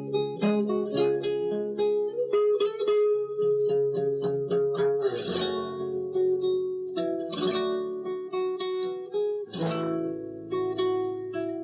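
Background music on guitar: single notes picked and left ringing, with a strummed chord about every two seconds from about five seconds in.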